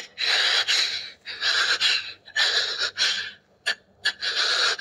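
A person breathing heavily: four long, hissy breaths of about a second each, with short pauses between them.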